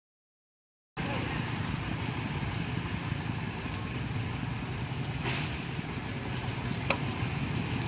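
Outdoor background noise that starts suddenly after about a second of silence: a steady low rumble with hiss, like a distant running engine or wind on the microphone, broken by two sharp ticks in the second half.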